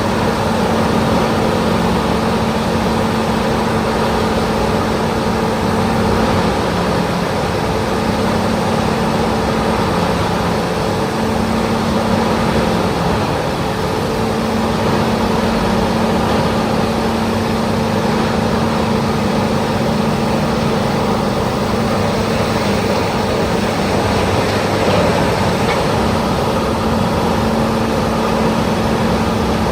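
Peterson 5710E horizontal wood grinder running continuously, its diesel engine holding a steady pitch over the noise of the grinding. The engine note sags briefly a few times in the first half.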